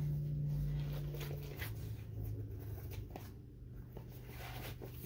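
Faint rustling and rubbing of a neoprene Muay Thai knee pad being handled and turned over, over a low hum that drops in pitch about one and a half seconds in.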